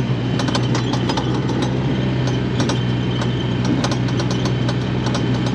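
A vehicle's engine running steadily, a low hum with light clicking and rattling over it.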